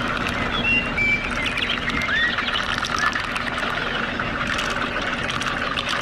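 A small motor running steadily with an even hum, with short bird chirps over it.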